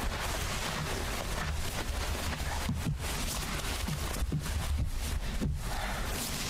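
Steady low rumble and hiss from the found-footage camera's audio, with a few soft knocks and thumps from about two and a half to five and a half seconds in.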